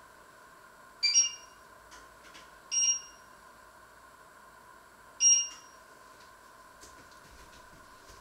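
Three short electronic beeps from a kitchen appliance, about a second in, near three seconds and a little past five seconds, each a brief two-tone chirp.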